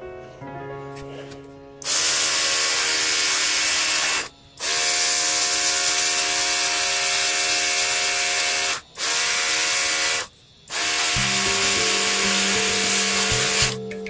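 Cordless battery-powered airbrush spraying a mixed red base coat over black primer on a plastic model part: a steady, loud hiss in four long bursts, the trigger let off briefly between them. Background music plays underneath.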